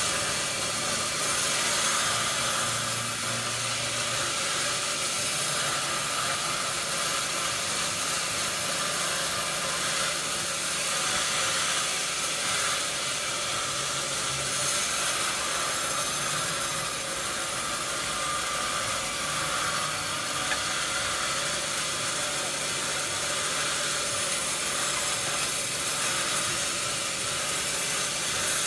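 Sawmill machinery running steadily: a continuous hissing noise with a low hum underneath.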